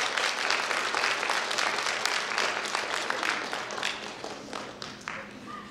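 Audience applauding: dense clapping that thins out and dies away to a few last separate claps near the end.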